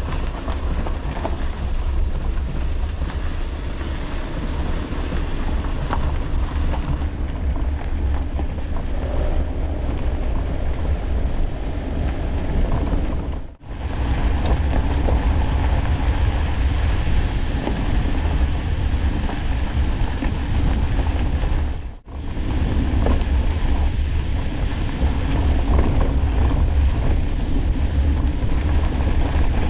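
Steady low rumble and wind noise of a vehicle on the move, cut off twice for a moment.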